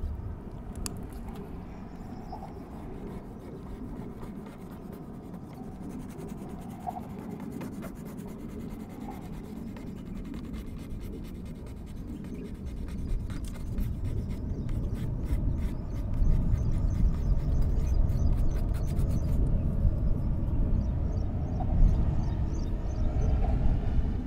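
Paintbrush scratching and rubbing across watercolor paper in repeated strokes, with a dense run of fine scratches in the second half. Under it runs a low rumble that grows louder about two-thirds of the way through.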